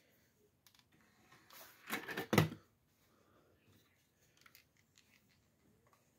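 Brief clatter of objects being handled close to the microphone about two seconds in, then a couple of faint clicks; otherwise a quiet room.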